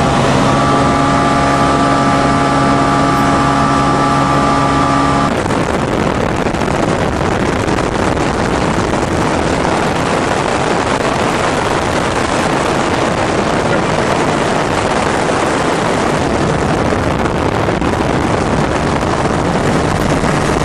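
Light high-wing airplane's engine and propeller droning, heard inside the cabin. A steady, pitched hum gives way about five seconds in to an even rushing noise that carries on.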